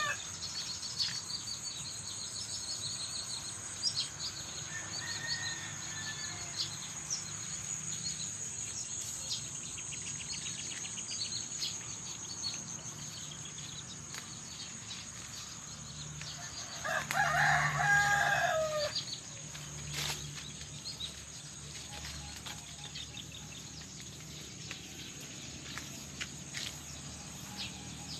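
A rooster crows once, a loud cock-a-doodle-doo about seventeen seconds in, ending on a falling note. A steady high insect trill and scattered small bird chirps run underneath.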